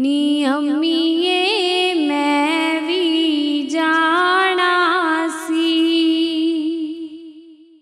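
A woman singing a Punjabi devotional shabad, drawing out the closing phrase in long wavering notes. The singing fades away about seven seconds in as the song ends.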